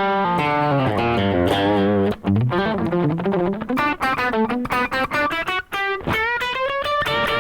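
Electric guitar played through a Valkyrie overdrive pedal with the gain at maximum: quick runs of single notes, ending on a longer held note that bends slightly upward.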